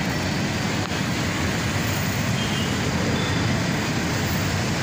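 Steady, mostly low noise of a congested city street: the engines of many jeepneys, vans, cars and motorcycles running as they creep along in a traffic jam.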